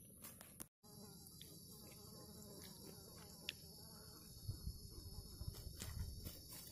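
Faint, steady, high-pitched chorus of forest insects, with a brief cut-out near the start. From about halfway on, soft low bumps and knocks of handling are heard.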